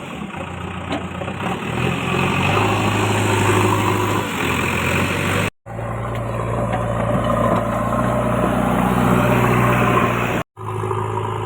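Heavy machine's engine running steadily, with the sound breaking off abruptly for a split second twice.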